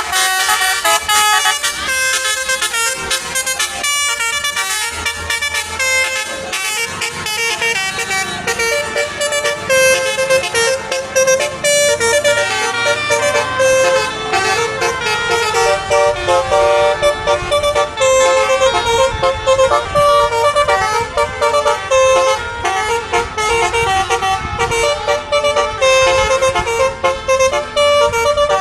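Multi-tone Basuri telolet horns on boats playing melodies in turn: quick runs of sustained horn notes stepping up and down in pitch, continuous and loud.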